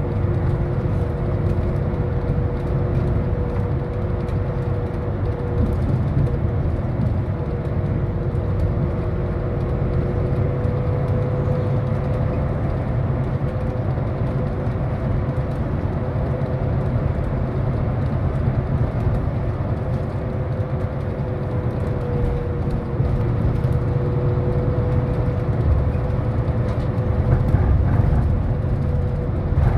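Cabin noise of a city bus on the move: a steady low engine and road rumble with a constant whine running over it.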